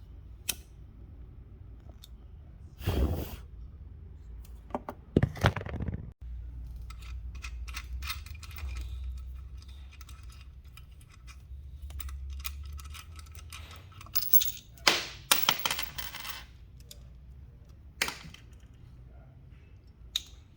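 Small hard objects being handled: scattered clicks, knocks and clatter, with louder clusters about five seconds in and again about fifteen seconds in, over a low rumble in the middle stretch.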